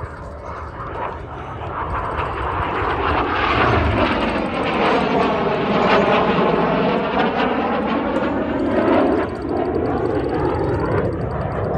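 Jet engine noise from BAE Hawk T1 display aircraft flying past, growing louder over the first few seconds and staying strong to the end. A swishing sweep falls and rises again as they pass.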